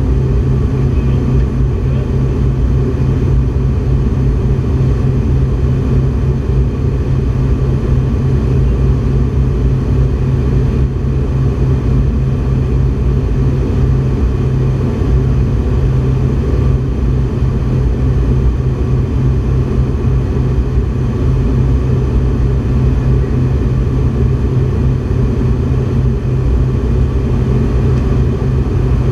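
Steady cabin noise of an aircraft in flight: a loud, even, low drone of engines and airflow that does not change.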